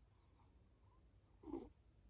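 Pause between a sleeping pet's snores: near silence with one short, faint breath sound about one and a half seconds in.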